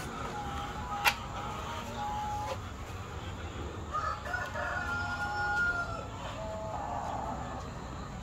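Chickens calling, with a rooster crowing in a long held note about halfway through. A single sharp click about a second in.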